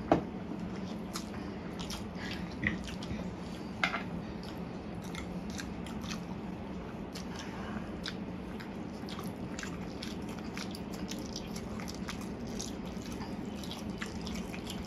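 Close-up eating sounds of people slurping and chewing soft spicy Korean fire noodles, full of short wet mouth clicks and smacks, over a steady low hum.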